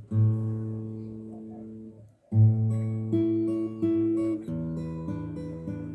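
Acoustic guitar playing strummed chords. The first chord rings out and fades into a brief pause about two seconds in, then a loud chord is struck and the chords change every half second or so.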